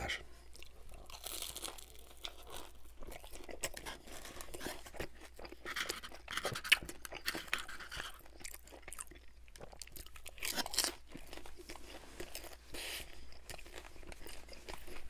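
Close-miked crunching and chewing of a crisp fried egg roll: irregular crunches with wet mouth sounds, and one sharp, louder crunch a little before halfway.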